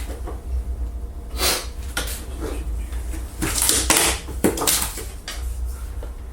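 Cut-out wooden pieces knocking and clattering as they are handled and set down: a few sharp knocks and short rattles, spread unevenly.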